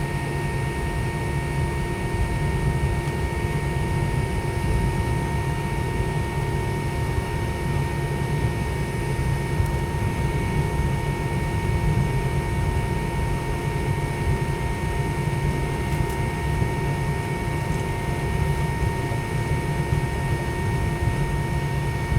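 Steady cabin hum of a parked McDonnell Douglas MD-90, from its air-conditioning airflow and onboard systems with the engines shut down: an even rush with a low rumble and several fixed high tones over it, unchanging throughout.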